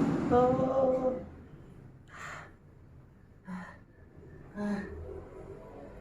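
A person's drawn-out pained moan for about a second, then three short, sharp breaths about a second apart: a patient's reaction to pain during a deep traditional massage.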